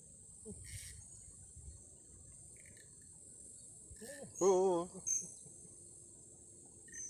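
Insects chirring in a steady high-pitched drone, with a man's short drawn-out exclaimed 'oh' about four and a half seconds in.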